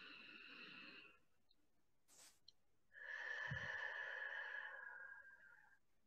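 A person taking slow, deep breaths: one breath ends about a second in, then after a short click comes a longer breath out from about three seconds in that fades away before the end.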